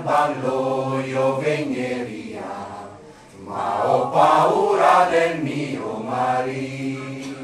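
Folk choir singing unaccompanied, two sung phrases with a short break for breath about three seconds in.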